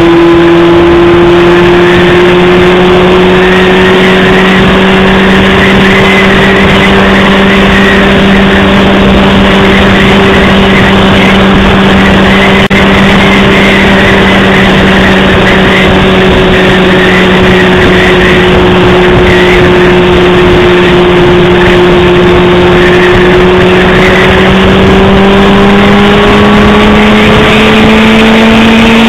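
Honda CBR600RR's inline-four engine running at a steady cruise, its pitch holding level and then rising gently over the last few seconds as it speeds up, over a steady rush of wind noise.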